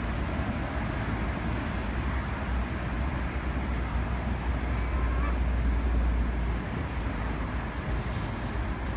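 Steady wind noise on the microphone. From about halfway through, a metal shopping trolley's wire basket and wheels rattle as it is pushed over grass, growing louder near the end.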